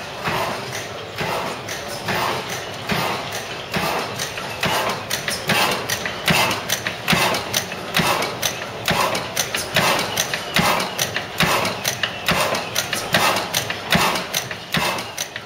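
National horizontal stationary gas engine running, a steady rhythmic mechanical clatter of a few clacks a second.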